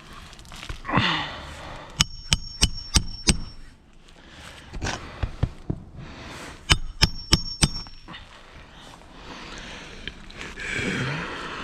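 A hammer driving roofing nails into shingles: two quick runs of about five metallic strikes each, a few seconds apart, each strike with a short high ring.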